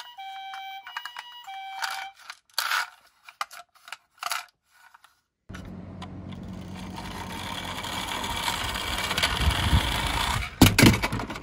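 A toy emergency minicar's electronic two-tone siren, alternating between two pitches, stops about two seconds in. Plastic clicks and clacks of the toys being handled follow. From about halfway, a rolling, whirring noise from toy cars running grows steadily louder and ends in a few loud clacks near the end.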